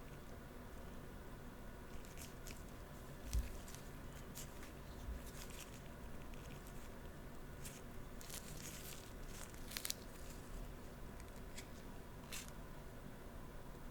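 Eating sounds: scattered crisp crunches and clicks as sugar-glazed tanghulu fruit is bitten and chewed, thickest in a cluster near the end, with a soft low thump a few seconds in.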